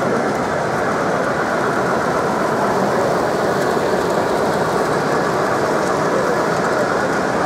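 Steady hubbub of a crowded exhibition hall: many voices and movements blending into one continuous din.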